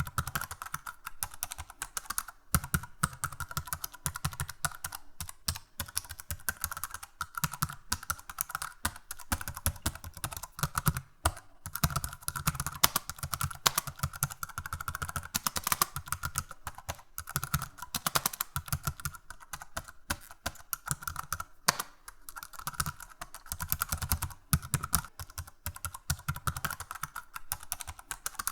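Computer keyboard being typed on: a continuous, irregular run of key clicks with brief pauses between bursts.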